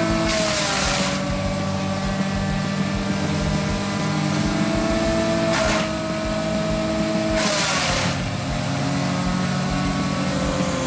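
Wood chipper's engine running steadily, its note dipping under load each time branches are fed in and chipped, with a rushing hiss of wood being cut and blown out the chute three times: about half a second in, near six seconds, and around seven and a half seconds.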